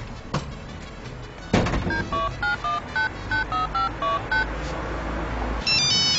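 A phone number being dialled: about eleven short telephone keypad (DTMF) beeps in quick succession, each two tones at once, after a sharp click. Near the end a different pitched sound with gliding tones starts.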